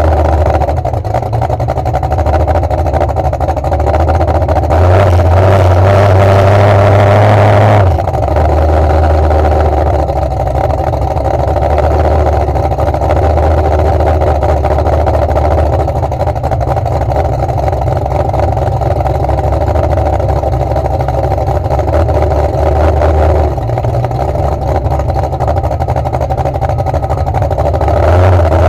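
Demolition derby truck's engine idling, heard from inside the stripped cab; the revs step up for about three seconds around five seconds in, and again near the end.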